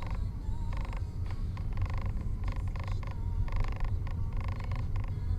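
Car cabin sound picked up by a dashcam's built-in microphone while driving: a steady low road and engine rumble, with short higher-pitched creaks or squeaks repeating every fraction of a second over it.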